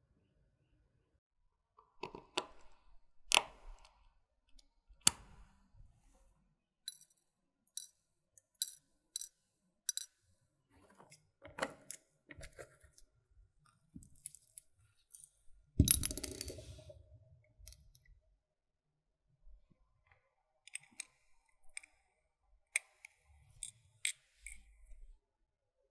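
Small, scattered clicks, taps and clinks of watchmaker's tweezers, tools and parts on a workbench, with one louder clatter partway through.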